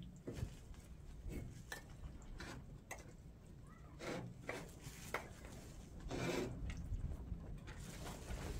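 Gloved hands working dry powder in a metal basin: intermittent rubbing and scraping with scattered light clicks, the longest scrape about six seconds in.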